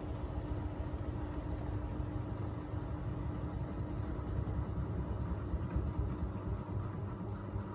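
Miele Navitronic W3985 WPS front-loading washing machine running mid-cycle on its Express 40° programme: a steady motor hum over the rumble of the turning drum.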